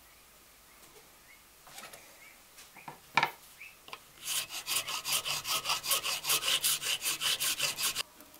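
A round file scraping back and forth across a plastic screwdriver handle in quick, even strokes, about five a second, for nearly four seconds. Before it start there are a few light knocks, one sharp knock a little after three seconds in.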